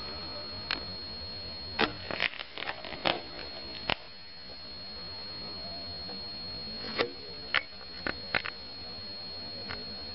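Handling noise: scattered light clicks and taps, bunched in the first four seconds and again about seven to eight seconds in, over a steady hum with a thin high whine.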